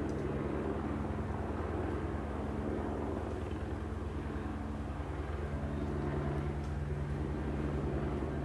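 An engine running steadily with a fast low pulsing hum, its pitch dipping briefly about halfway through.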